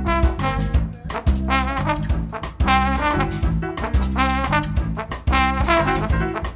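Live instrumental band: trombone playing the lead line over bass, drums and congas with a steady beat, and a harmonica joining in partway through.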